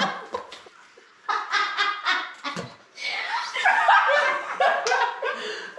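People laughing, starting after a brief lull about a second in and building to overlapping laughter.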